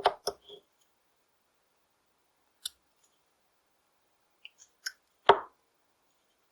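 Carving knife cutting into a small basswood stick in short, separate strokes: a quick run of cuts at the start, a single sharp click a little before three seconds, then a few lighter cuts and the loudest, longer slice a little after five seconds.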